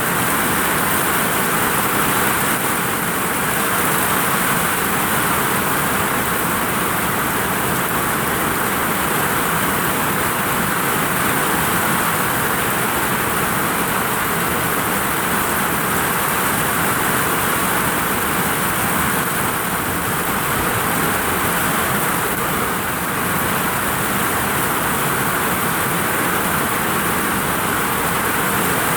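Heavy rain pounding on a vinyl roof: a dense, steady hiss at an even level.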